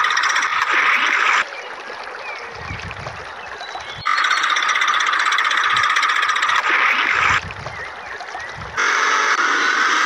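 A dense chorus of frogs croaking, which cuts out abruptly twice, leaving only low rumbling and faint chirps, and then cuts back in just as suddenly.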